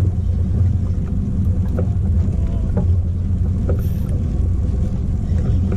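Steady low rumble on board a fishing boat at sea, the boat's engine running.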